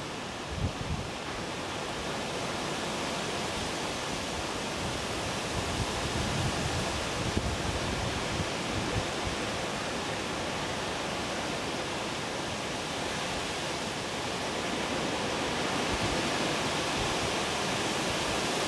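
Wind outdoors: a steady rushing hiss with uneven low rumbling from wind on the microphone, growing a little louder near the end.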